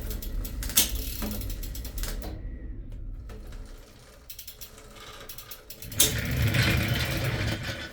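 Mechanical ratcheting and clicking, irregular, with a louder, rougher stretch of grinding mechanical noise starting about six seconds in.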